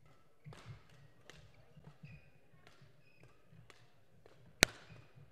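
Badminton rackets striking shuttlecocks in an irregular patter of sharp clicks, with one much louder, crisp hit about four and a half seconds in. Short squeaks of shoes on the court floor come between the hits.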